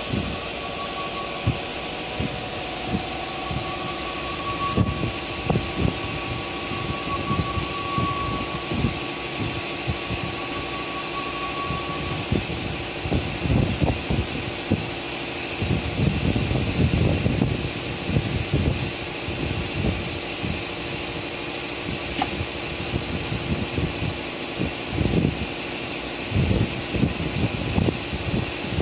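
Acctek AKG1212C automatic tool-change CNC router running: a steady hiss and hum from the spindle and machine. A thin high tone fades out about halfway through, low knocks come and go, and there is one sharp click a little past two-thirds of the way.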